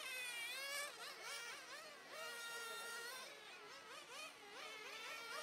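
1/10-scale radio-controlled touring cars racing: their motors whine in overlapping high-pitched tones that rise and fall in pitch as the cars speed up and slow down through the corners.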